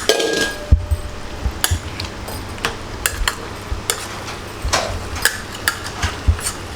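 Irregular clinking and knocking, a dozen or so sharp strikes scattered through, over a steady low hum.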